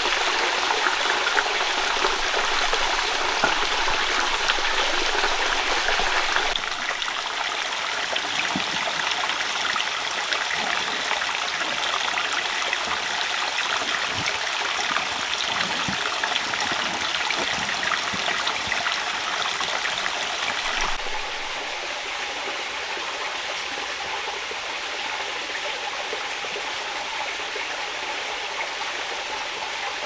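Shallow rocky forest stream running over stones, a steady rush of water. It drops in level about a fifth of the way in and again about two-thirds of the way in.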